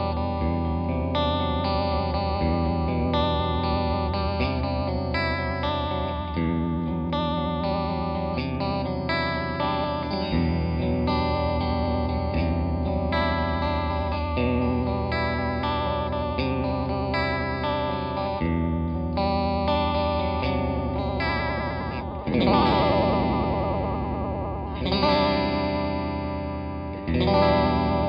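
Electric guitar played through a Uni-Vibe-style four-phase chorus/vibrato pedal, set to chorus, giving a steady wavering throb to the notes. Two louder strummed chords ring out near the end.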